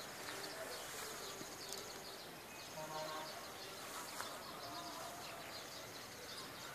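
Garden ambience of many small birds chirping and twittering over a steady high hiss, with a short louder call about three seconds in.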